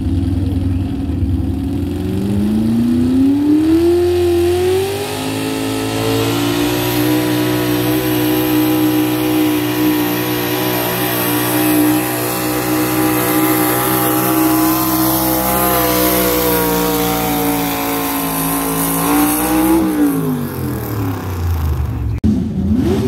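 Semi truck's diesel engine revving up over a few seconds and held at high revs under full load while pulling the sled, then backing off sharply near the end.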